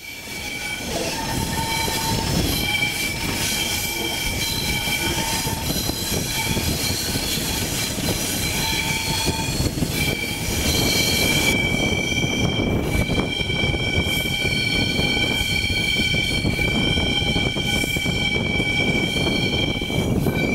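Wheels of a train of old 'rybák' passenger coaches rolling and squealing on the rails. A steady high squeal sits over the rumble of the running gear, heard from an open coach window. About halfway through, the squeal becomes louder and steadier.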